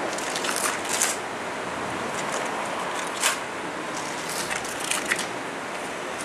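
Steel trowel scraping and smoothing a thin layer of wet patching mortar on a concrete floor, a steady gritty swish broken by a few sharper scrapes.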